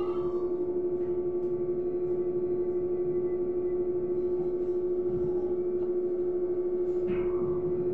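A steady electrical hum, a single even tone, from a Trolza-5265 Megapolis trolleybus while it stands nearly still, heard from inside the cabin.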